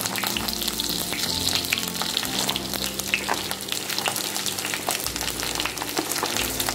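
Garlic cloves frying in hot mustard oil in a pot, a steady sizzle with many small crackles and spits.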